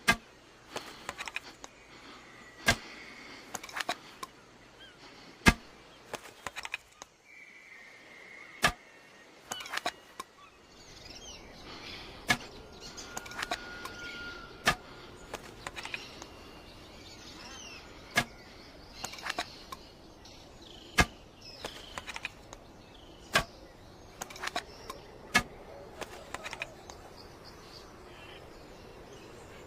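A blowpipe being shot repeatedly: about ten sharp pops, one every two to three seconds, each with a few smaller clicks around it.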